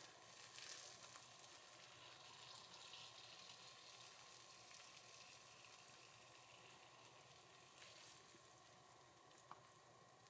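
Faint crackling fizz from oobleck that has baking soda and vinegar reacting in it, its bubbles popping as it is squeezed in the hands, with a few soft clicks about eight seconds in.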